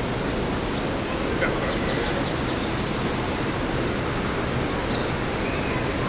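Steady murmur of a huge crowd of pilgrims circling the Kaaba, with short high chirps scattered through it.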